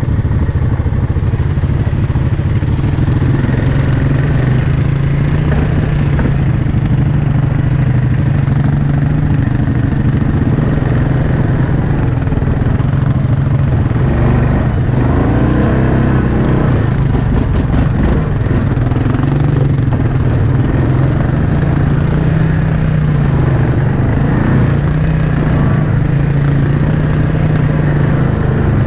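ATV engine running at low, slightly varying speed as the quad crawls over a rough trail, with intermittent clattering.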